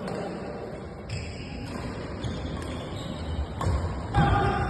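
Badminton rally in an indoor hall: several sharp racket strikes on a shuttlecock, mixed with dull thuds of players' feet on the court floor. The hits echo in the hall.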